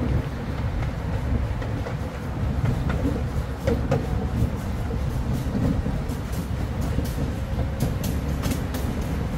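Miniature-scale ride-on train rolling along its track: a steady low rumble of the cars and wheels, with a few single clicks and then a quick run of regular clicks near the end as the wheels pass over rail joints.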